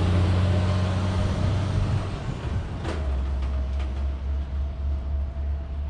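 Heavy truck engine running, a steady low rumble that drops in pitch about two seconds in.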